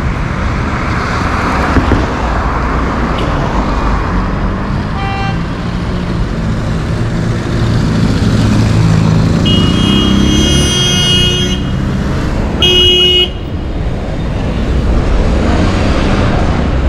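Street traffic with a steady low rumble of engines and tyres, and car horns honking: a brief faint toot about five seconds in, a long honk of about two seconds near the middle, and a short loud honk a couple of seconds after it.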